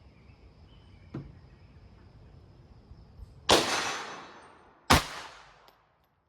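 Two shots from a Smith & Wesson 422 .22 LR semi-automatic pistol about a second and a half apart, the first with a longer ringing tail; the CCI small game rounds are feeding fine in it. A faint click comes about a second in.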